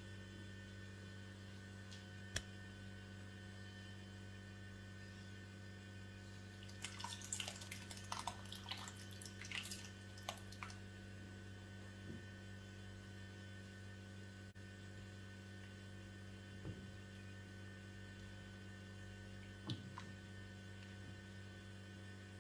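Faint, steady low electrical hum, with a short spell of liquid splashing and crackling about seven to ten seconds in as the blended mixture is poured into the pan of simmering vegetable stew.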